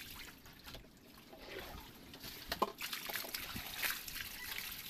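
Water trickling and splashing off a net fish trap full of fish as it is lifted from the water, with a few sharper splashes.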